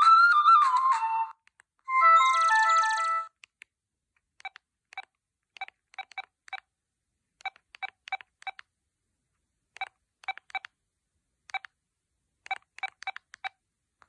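Huawei U120S mobile phone playing two short preloaded message alert tones: a sliding melody lasting about a second, then a brief chime about two seconds in. After that come about twenty short key beeps, singly and in quick clusters, as its keypad is pressed to move through the menus.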